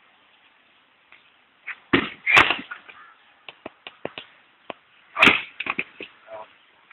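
Axe chopping firewood: two loud cracking blows about three seconds apart, with lighter knocks of wood around them.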